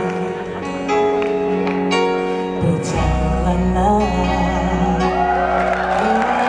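Instrumental introduction of a song on the backing track: held keyboard chords with struck notes, a bass coming in about three seconds in, then a wavering melody line over it.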